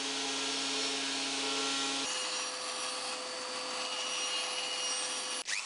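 Benchtop jointer-planer running steadily with a hum and a hiss as a hardwood strip is passed over its cutterhead. About two seconds in it gives way to a bandsaw running and cutting the strip, a steadier single tone over the saw hiss.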